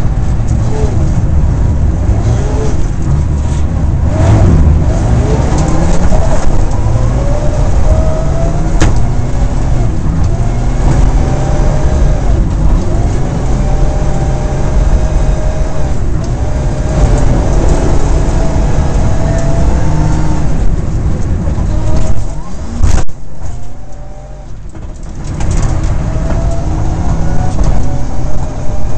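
Mitsubishi rally car's engine heard inside the cabin at stage pace, revving hard and rising in pitch again and again through the gear changes. A sharp knock comes about two-thirds of the way through, then the engine briefly goes quieter before pulling hard again.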